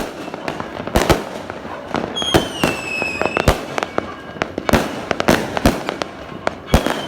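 Multi-shot fireworks going off: an irregular run of sharp bangs, with two whistles falling slightly in pitch, one about two seconds in and one near the end.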